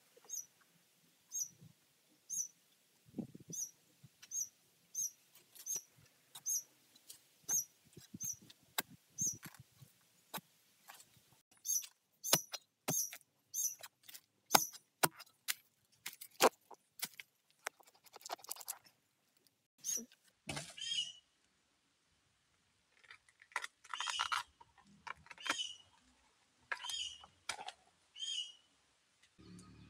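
Metal digging blade striking and cutting into soil around a bamboo shoot, in a string of short sharp chops: about two a second at first, then faster and louder. After a brief silent break, a further run of sharp cuts.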